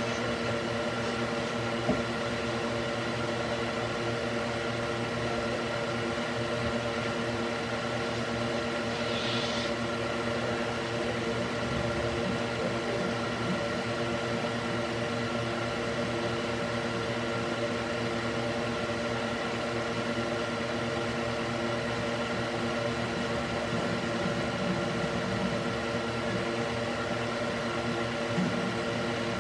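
Cooling fan mounted in a wooden box running steadily: an even whir with a steady hum of several tones. A faint click about two seconds in.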